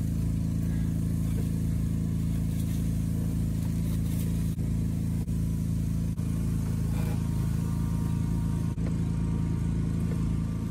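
A steady low mechanical hum, even in level, that goes on without a break.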